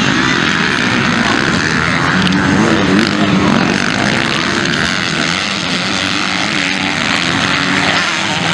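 Motocross dirt bike engines revving hard, their pitch climbing and falling as riders accelerate and back off through the corners.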